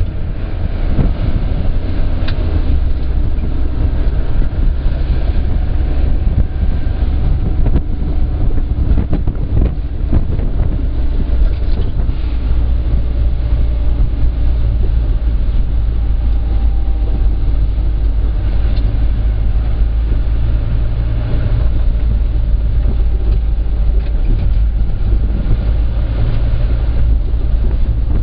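Minibus engine and road noise heard from inside the cabin while driving: a steady low rumble with a few knocks and rattles as it goes over the road.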